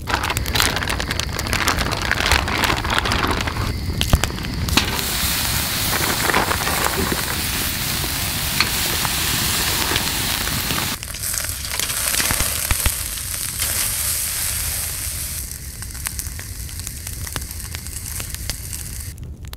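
Wood campfire crackling with sharp pops, then steaks sizzling on a metal grill grate over open flames, a steady hiss with occasional pops.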